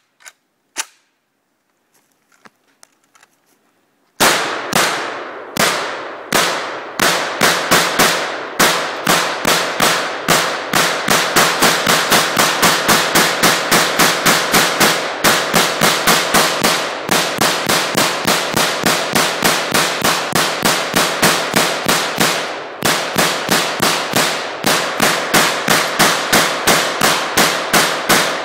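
AK-pattern pistol firing from a 75-round drum magazine: a few spaced shots about four seconds in, then a long string of rapid fire at about three shots a second, broken by two brief pauses.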